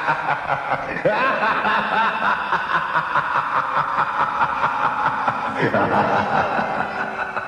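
A few people laughing hard, in quick pulsing bursts of voiced laughter.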